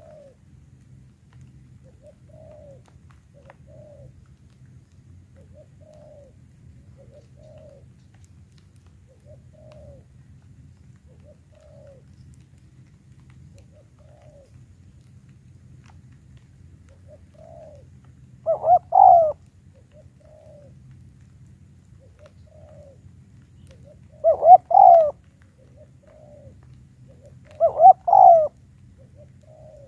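Spotted dove cooing: soft short coos every second or two, then three loud cooing phrases of a few notes each in the second half.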